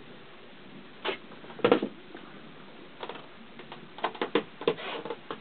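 A series of short knocks and clatters inside a small boat's cabin, the loudest just under two seconds in and a quick run of several more near the end, as someone moves through with a handheld camera.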